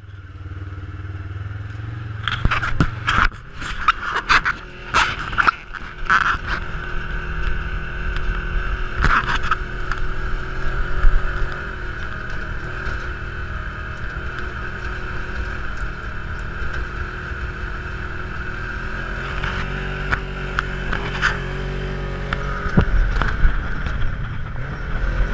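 Polaris side-by-side UTV's engine running under way on sand, heard from inside the open cab. Repeated clattering knocks from the cage and body over bumps fill the first ten seconds or so. The engine note rises about twenty seconds in.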